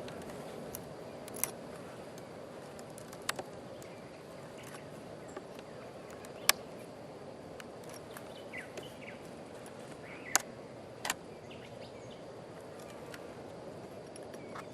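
Steady hum of a mass of honey bees around an opened hive, broken by several sharp clicks, the loudest about six and a half seconds in.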